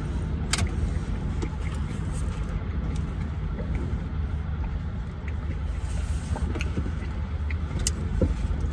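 Steady low hum of a stationary car's idling engine, heard from inside the cabin, with a few light clicks, one clear one about half a second in and another near the end.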